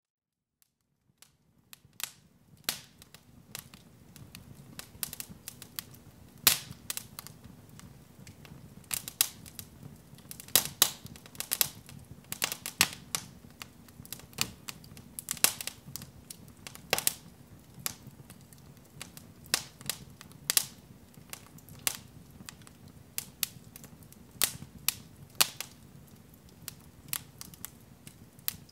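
Irregular sharp clicks and crackles, a few a second and of varying loudness, over a faint low steady hum.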